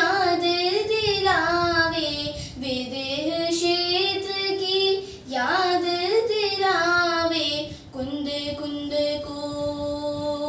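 A young girl singing a Jain devotional bhajan unaccompanied, stretching the words into long, sliding phrases. From about eight seconds in she holds one steady note.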